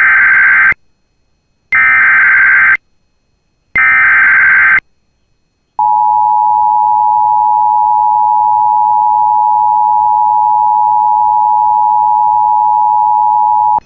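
Emergency Alert System broadcast signal: three one-second bursts of screeching SAME header data, then the two-tone attention signal held steady for about eight seconds. It marks the start of an emergency alert, here a severe thunderstorm warning.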